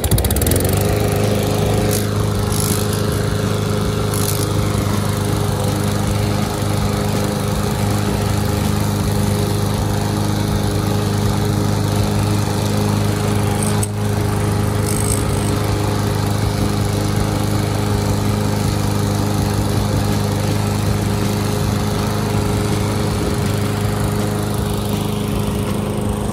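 Craftsman M220 lawn mower's 150 cc Briggs & Stratton single-cylinder engine running while mowing grass. It rises in pitch in the first second, then runs steadily at a constant speed.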